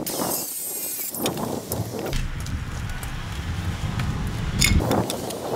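A few knocks and steps of a wooden board and boots on a wooden porch floor, over a low rumble that sets in about two seconds in. The loudest knock comes near the end.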